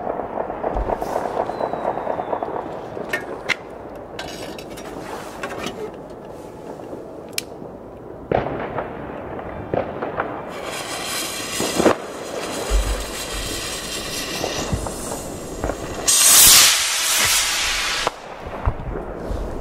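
New Year's Eve fireworks going off on all sides: scattered bangs of firecrackers and rockets over a steady background of distant explosions. About sixteen seconds in comes a loud two-second burst of hissing crackle.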